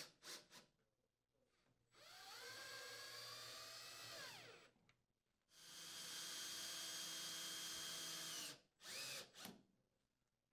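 Cordless power drill with a 5/16-inch socket driving mounting screws into sheet-metal brackets: a short blip at the start, then two runs of about three seconds each. The first run rises in pitch as it speeds up, the second holds steady, and both wind down at the end. Two quick blips of the trigger come near the end.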